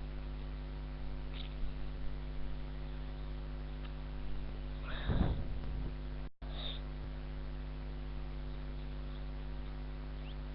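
Steady electrical mains hum with its stacked overtones, picked up by the recording. About halfway through there is a short breathy rustle, followed by a momentary dropout in the audio.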